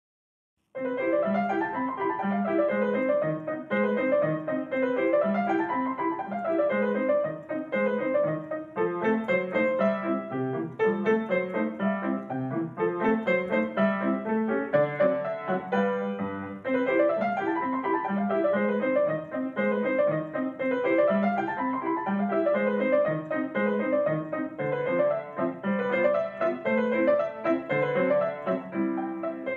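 Kawai upright piano being played: a solo piece with quick melodic runs that climb and fall over repeated lower notes, starting about a second in.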